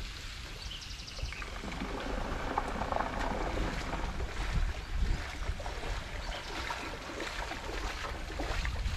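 Splashing footsteps of a person wading through shallow seawater, irregular, with wind rumbling on the microphone.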